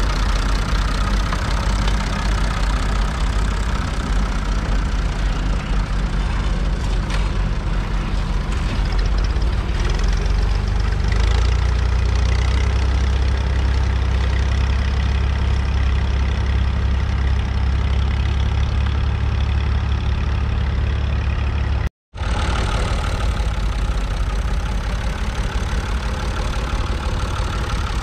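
1968 Massey Ferguson 135's 2.5-litre three-cylinder Perkins diesel engine running steadily. The sound cuts out completely for a split second once, late on.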